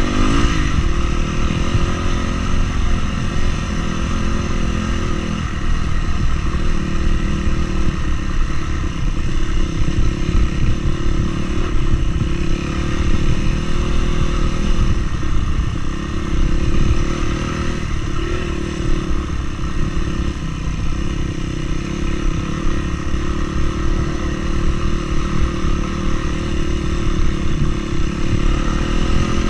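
Vehicle engine running steadily, its pitch shifting a little now and then.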